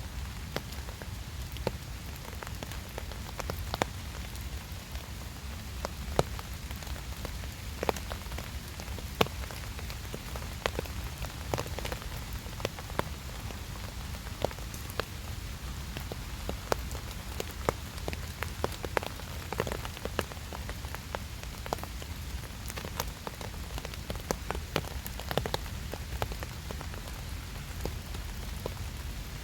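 Steady rain falling, with many sharp, irregular ticks of drops striking close by.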